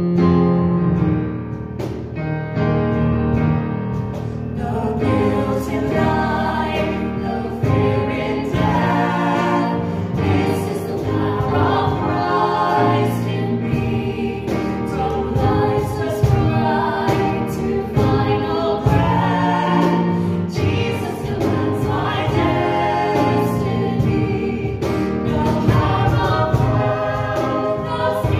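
Live worship song: women's voices singing into microphones with a man's voice joining, over electric keyboard accompaniment.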